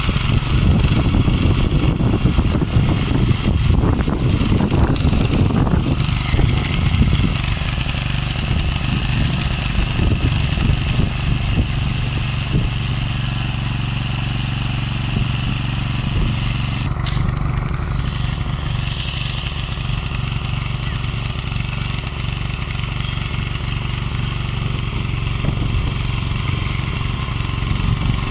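Ecomax 12 hp walk-behind power tiller running steadily under load as its rotary tines dig through sod and soil. There is more irregular knocking and clatter in the first several seconds.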